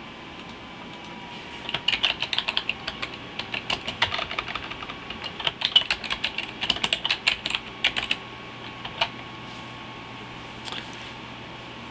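Typing on a computer keyboard: quick runs of keystrokes for about six seconds, then a single click about a second later.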